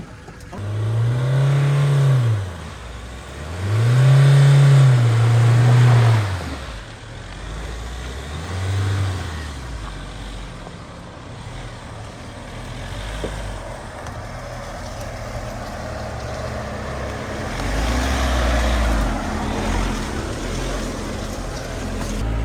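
An off-road 4x4's engine revving hard in repeated swells, pitch rising and falling three times in the first nine seconds, then running more steadily under load.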